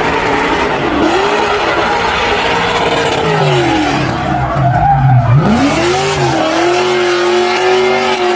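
A car's engine revving hard during a drifting burnout. Its pitch dips about halfway through, climbs back and then holds high, while the tyres squeal and skid under wheelspin.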